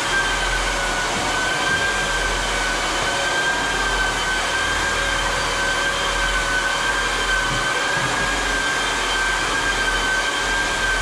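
A steady electric blower-type motor running, with a high whine that wavers slightly.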